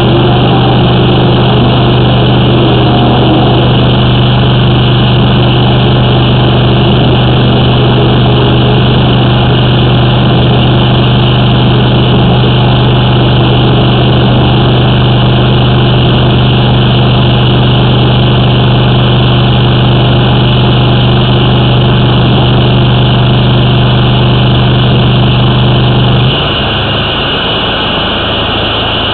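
A high-pressure drain jetter's engine running at a steady speed with an even, low hum. About 26 seconds in it drops suddenly to a quieter, lower running note.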